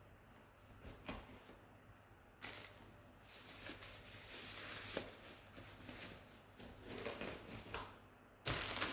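Faint handling noises from small items and plastic packaging being picked up and moved: soft rustling with a few sharp clicks, the loudest about two and a half seconds in.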